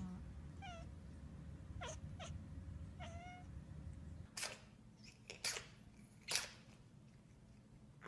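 A domestic cat gives a few brief, faint meows in the first half, followed by three short faint bursts of noise in the second half.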